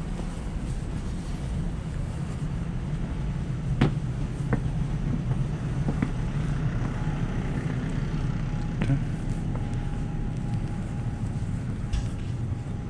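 Steady low outdoor rumble, with a few sharp clicks and knocks scattered through it.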